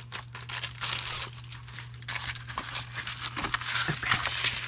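Packaging from a diamond painting kit crinkling and rustling continuously as it is handled and opened.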